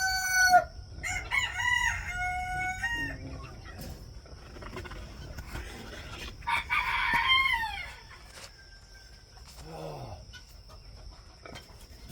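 Roosters crowing repeatedly, one crow ending about half a second in, another soon after, and a loud drawn-out crow about six and a half seconds in that falls away at its end, with hens clucking between.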